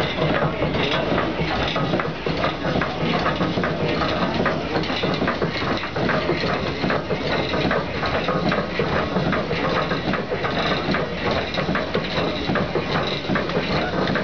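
Logging donkey engine running, its gears and mechanism making a steady, dense clatter.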